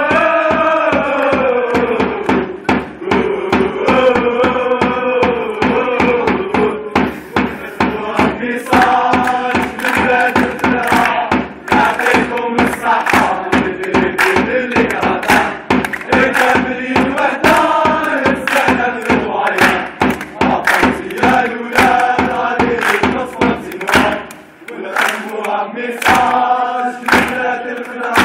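A crowd of young men chanting a football ultras song in unison, with a hand-held drum beating a steady rhythm under the voices. The chant breaks off briefly near the end, then starts again.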